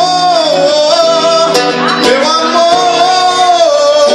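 Live acoustic MPB: a singer holds a long, slightly wavering note on "amor" over strummed acoustic guitar.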